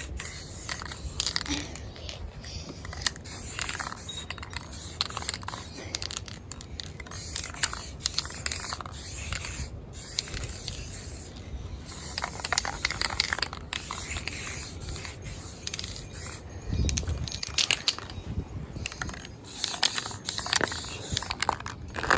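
Aerosol spray-paint can spraying in many short hissing bursts, with clicks and rattles in between, as the can runs low on paint.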